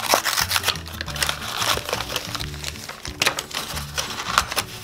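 Background music with a low, repeating bass line, over the crinkling and clicking of a cardboard toy box and its packaging being handled and opened.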